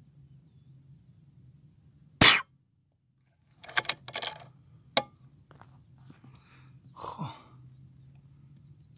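A single sharp, loud shot from an Uragan King air rifle fired without a silencer, a little over two seconds in. About a second and a half later comes a quick run of clicks, then one more sharp click, and near the end a brief sound falling in pitch.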